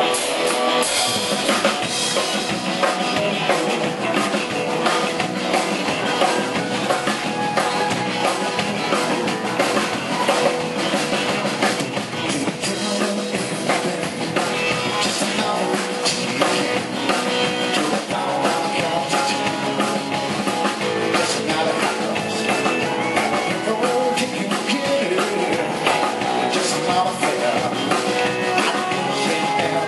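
Live rock band playing an instrumental passage: distorted electric guitar, electric bass and a Gretsch drum kit, played steadily with no vocals.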